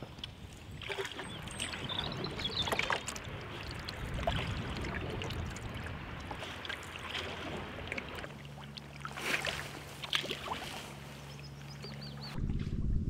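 Wooden canoe being paddled: irregular paddle splashes and dripping water, roughly every one to two seconds, over water lapping at the hull. A steady low hum joins about two-thirds of the way in, and the sound changes abruptly near the end.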